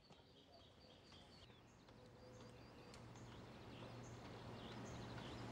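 Near silence fading up into faint outdoor ambience: small birds chirping in short, scattered high calls over a low steady hum.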